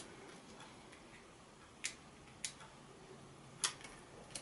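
Three faint, sharp clicks from small card and vellum pieces being handled on a fabric mouse mat while foam adhesive is put on their backs, over quiet room hiss.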